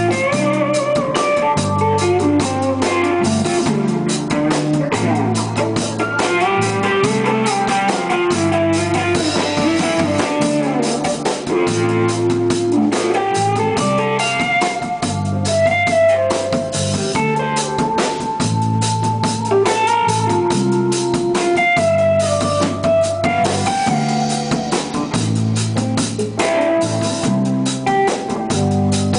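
Rock band playing live: electric guitar, bass guitar and drum kit.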